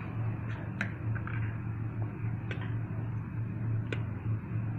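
A spoon scraping thick batter out of a steel bowl onto a steel plate, with three sharp clicks of spoon against steel about a second and a half apart, over a steady low hum.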